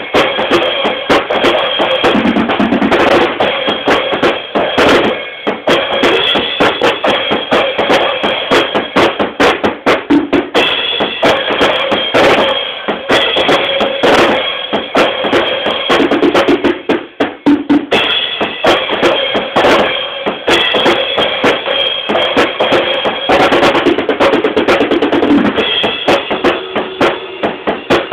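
Acoustic drum kit played continuously: bass drum, snare and toms under ringing cymbals, with a brief let-up about seventeen seconds in.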